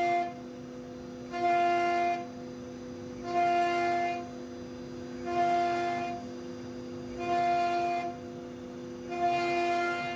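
Background music: a steady drone under a held, reedy note that sounds five times, about once every two seconds.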